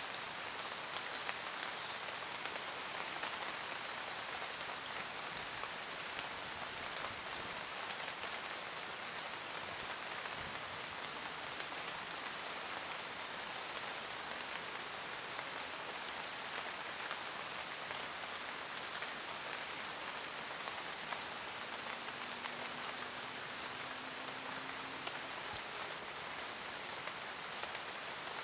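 Steady rain falling in a forest, an even hiss of many drops with small individual drop ticks on leaves.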